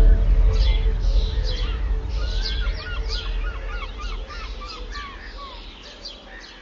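Several birds calling and chirping, with many short quick calls, over a loud low rumble that starts suddenly and fades away toward the end.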